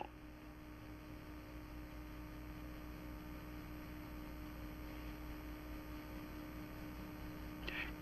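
Steady low electrical hum with a faint hiss, from the soundtrack's background noise. No other sound is heard.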